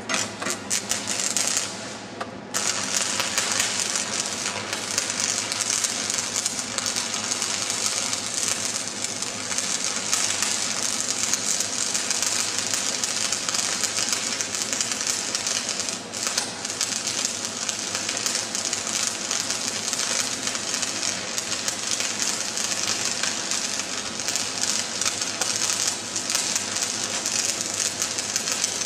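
Electric welding arc crackling and sputtering as a weld is run. It catches, drops out briefly about two seconds in, then crackles steadily.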